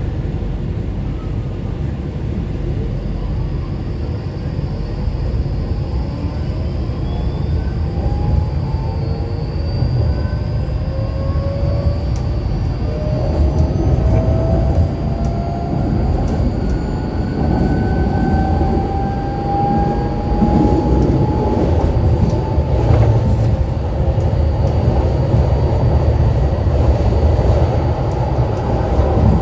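Škoda ForCity Classic 28T low-floor tram running, its traction motor whine climbing slowly in pitch as it accelerates, over a steady rumble of running gear on rails. The rising whine starts about a quarter of the way in and fades after about two thirds of the way through.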